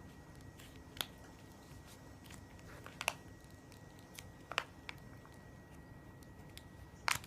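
A few faint, scattered sharp clicks and taps of small plastic toy parts being handled, over quiet room tone.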